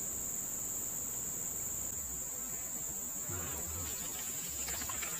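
Steady high-pitched shrilling of an insect chorus in swamp vegetation. From about two seconds in, fainter splashing and dripping of water is heard as a hooked fish and line are pulled up out of the water.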